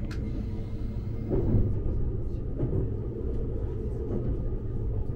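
Steady low rumble of the E261-series Saphir Odoriko express train running, heard from inside the carriage, with a brief swell about a second and a half in.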